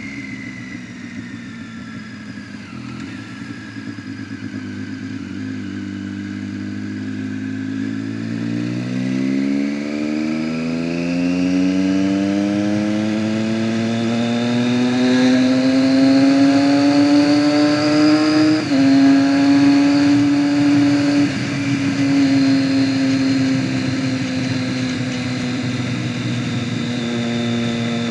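Motorcycle engine and exhaust under way. The note sinks at first, then climbs steadily for about ten seconds as the bike accelerates. About two-thirds of the way through it drops suddenly as the rider shifts up, then runs on at a nearly steady pitch.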